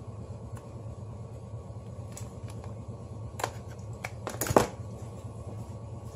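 Light clicks of a cordless drill's plastic housing being handled with pliers, then a short clatter about four and a half seconds in as the housing half and the pliers are set down on a metal workbench, over a steady low hum.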